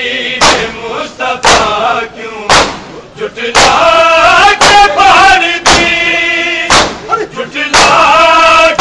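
A devotional lament chanted by male voices over sharp, regular beats about once a second, in the manner of a noha kept in time by beating.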